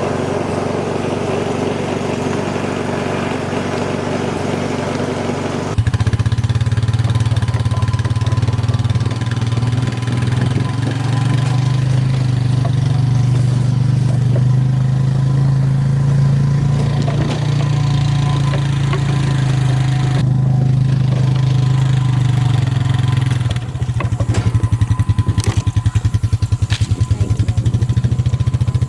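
Petrol engine running steadily. It comes up louder with a deeper note about six seconds in, then shifts again to a fast, even pulsing near the end.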